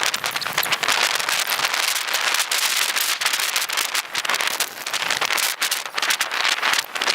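Heavy rain, a dense crackle of drops striking close to the microphone, on the phone held over the camera to shield it.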